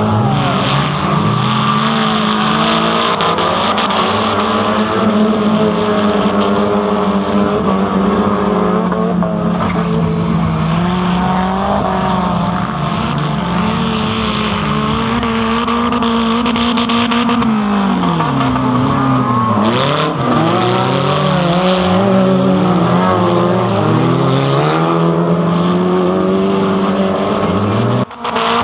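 Engines of several old wreck-race cars running hard on a dirt track, revving up and down as they race around the circuit. The engine pitch dips and climbs again several times in the second half as drivers back off and accelerate.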